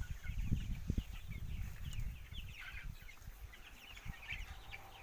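A large flock of young broiler chicks cheeping, many short high peeps overlapping without a break. Uneven low rumbling thumps sound under them for the first two seconds.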